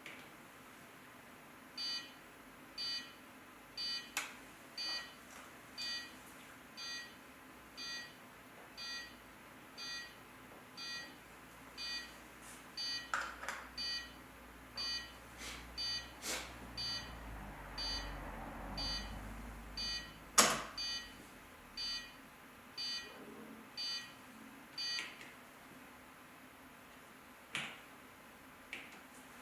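Short electronic beeps from a computer or console beeper, repeating steadily about once a second and stopping a few seconds before the end, with a few sharp clicks in between.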